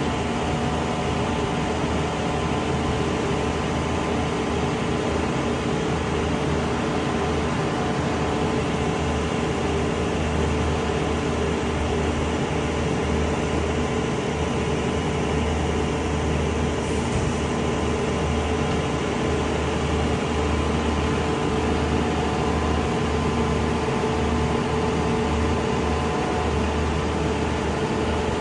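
Truck-mounted ladder lift's diesel engine and hydraulics running steadily as the ladder boom raises and extends: an even mechanical drone with a low hum.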